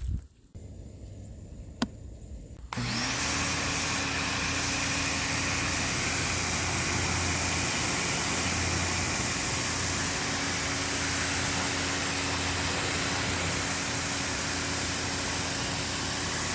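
Greenworks 1700 PSI electric pressure washer starting suddenly about three seconds in and running steadily: a motor hum under a loud, even hiss of high-pressure water spray. A single sharp click comes shortly before it starts.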